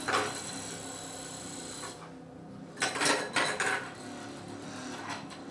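Prepared, amplified hurdy-gurdy played as a noise instrument: scraping and rubbing sounds over a faint high hum. A scratchy stroke comes at the start, then a short lull about two seconds in, then a cluster of loud scraping strokes around three seconds in.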